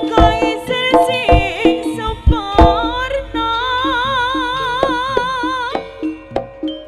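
Live Javanese jaranan ensemble playing: sharp kendang drum strokes over gamelan, with a pitched melody line that holds one wavering note for a few seconds midway.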